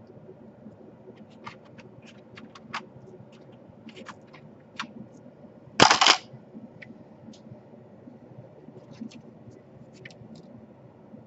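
Small scattered clicks and taps from handling laptop parts and tools, with one loud, sharp clack about six seconds in.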